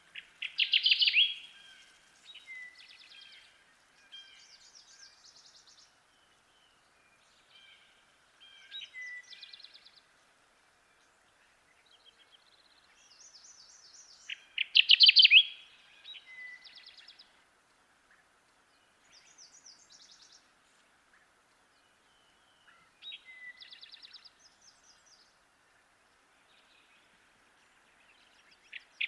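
Kirtland's warbler singing its loud, short song twice, about fourteen seconds apart, with fainter bird songs in between over a faint steady hiss.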